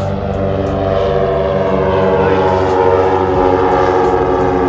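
A Britten-Norman Trislander flying overhead, its three piston engines and propellers droning steadily and growing slightly louder.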